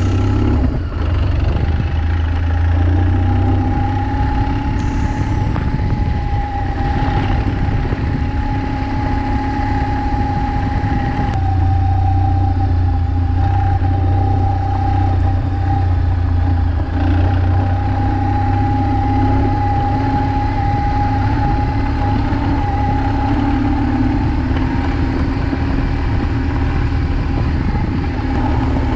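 BMW R1200GS flat-twin engine running at low, steady revs, a continuous deep rumble.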